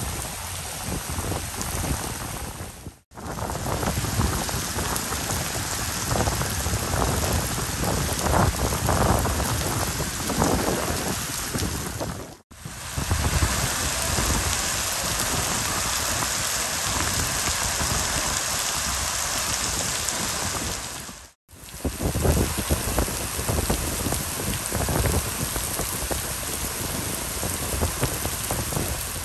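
Heavy tropical rain pouring steadily onto wet paving and railings, a dense hiss. It cuts out briefly three times where shots are joined.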